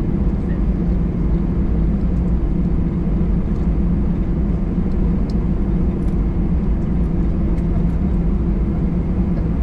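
Steady low cabin drone of an Airbus A319-112 taxiing with its CFM56 engines at idle, heard inside the passenger cabin, with a few held low tones in the hum.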